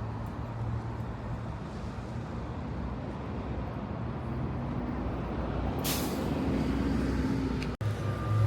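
Steady low vehicle engine rumble, with a sudden hiss of air about six seconds in, then an abrupt cut to a different sound near the end.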